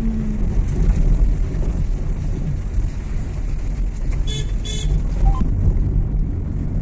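Car driving along a mountain road, a steady low rumble of engine and road noise, with two short high-pitched beeps a little past the middle.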